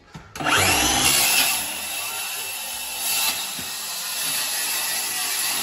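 Cordless circular saw spinning up about half a second in with a rising whine, then cutting steadily through the water-damaged particle-board floor.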